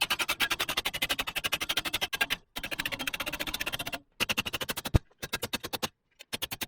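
A fast run of sharp, evenly spaced strikes, about a dozen a second, in bursts of one to three seconds with short breaks between them.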